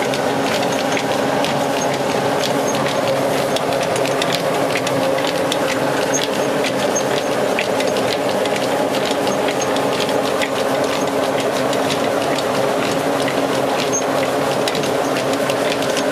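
Old belt-driven rice mill running: a steady mechanical drone with a hiss and many quick small ticks and rattles throughout.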